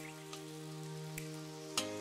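Onions and chicken sizzling as they are stir-fried in a wok, with a few sharp clicks of a metal spatula against the wok, about three in all, the last and loudest near the end. Background music with sustained chords plays over it, changing chord near the end.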